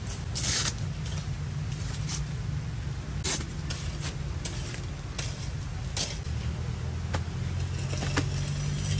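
A steady low engine-like hum, getting a little louder near the end, with scattered sharp clicks and knocks over it.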